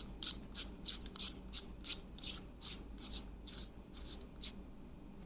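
Hands working the Boya BY-M1 lavalier mic's battery housing closed after its battery is fitted: a rhythmic scraping, about three strokes a second, with one sharp click a little past the middle, stopping before the end.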